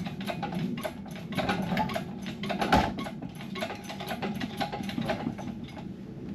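A jack being worked to raise the jet ski: rapid mechanical clicking and clanking, with a louder knock about three seconds in.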